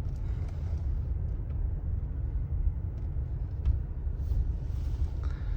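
Steady low road and engine rumble of a vehicle being driven, heard from inside the cabin, with a few faint ticks.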